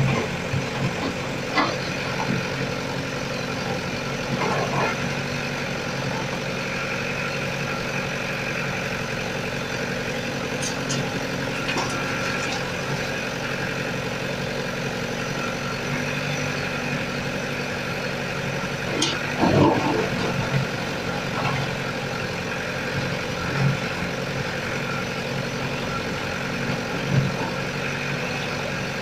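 JCB backhoe loader's diesel engine running steadily under working load while its bucket digs and loads broken road concrete. Scattered knocks and clanks of bucket and rubble come through, with the loudest clatter about two-thirds of the way through.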